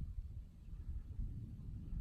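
Faint, uneven low rumble of wind buffeting the microphone, with nothing else standing out.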